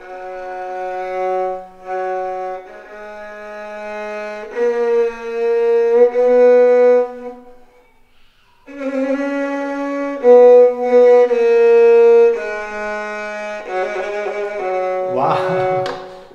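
A 200- to 300-year-old violin bowed by a near-beginner: a string of long, steadily held notes, with a break of about a second halfway through. Laughter starts to come in near the end.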